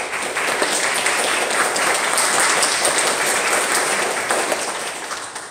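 Congregation applauding, a dense patter of many hands clapping that dies away near the end.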